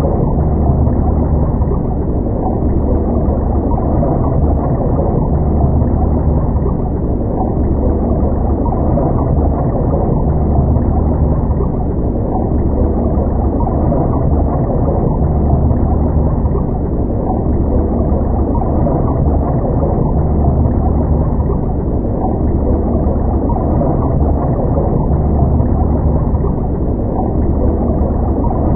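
Underwater ambience: a steady, muffled low rumble with gurgling water, dull with no highs, the deepest part swelling and easing slowly.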